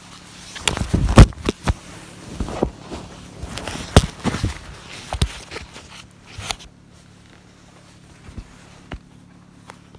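Rustling and bumping of sleeping-bag and tent fabric as someone moves about in a tent: a run of knocks and scuffs through the first six seconds or so, the loudest two near the start and in the middle, then only a few soft ticks.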